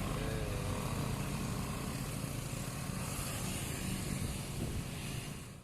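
Bus engine running as it climbs the hill past, with a short wavering horn note right at the start.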